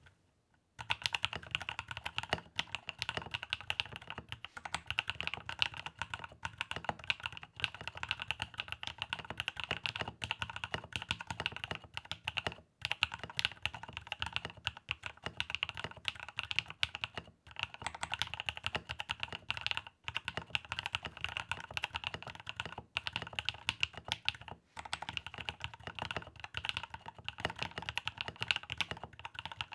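Mechanical keyboard with 62g Moss switches on a polycarbonate plate, internally dampened, typed on continuously at a fast pace. The typing starts about a second in, with a few brief pauses.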